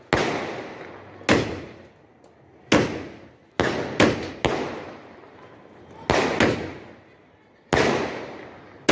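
A 12-shot fireworks cake firing: about nine sharp bangs at uneven intervals, some in quick pairs, each dying away over about a second.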